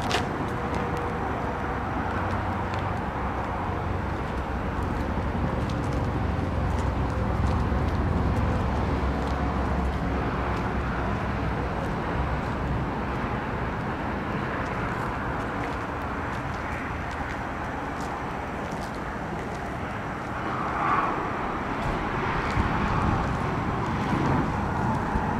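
Steady outdoor background noise of vehicles, with no nearby voices.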